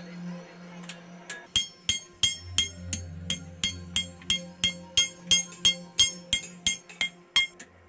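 Hand hammer striking a red-hot steel knife blade on an anvil: a steady run of sharp, ringing blows about three a second, starting about a second and a half in.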